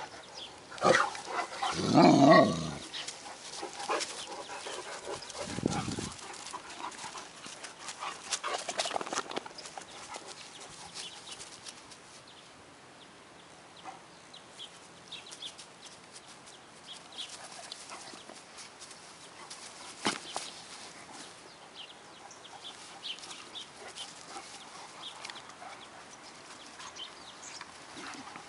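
Great Danes playing rough, with a burst of loud, deep dog vocalizing about one to three seconds in, the loudest part, and another shorter one near six seconds; after that it grows quieter, with scattered small sounds.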